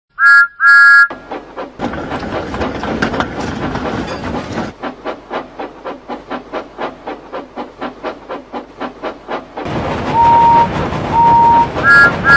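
Steam train sound effects: two short whistle toots, then chuffing, then an even clickety-clack of wheels over rail joints about four times a second, then two longer, lower whistle notes and another short toot near the end. The sections change abruptly, as if cut together.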